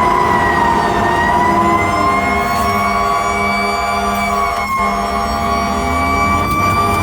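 Fire engine's mechanical Q siren wailing continuously, its pitch sagging in the middle and then winding back up, with the truck's engine running underneath.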